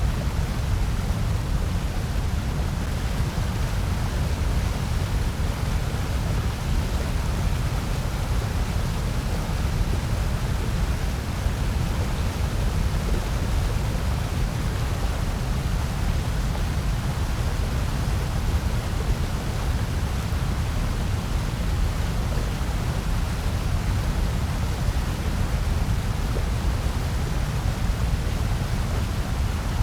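Steady, unbroken synthetic white-noise hiss, heaviest in the low end, with no change or pattern.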